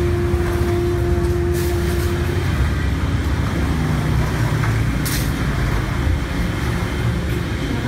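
Steady low rumble of an engine running, with a couple of faint clicks.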